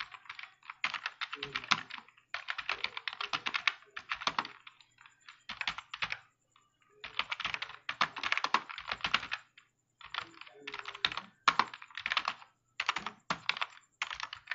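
Computer keyboard typing in quick runs of keystrokes, broken by short pauses between bursts.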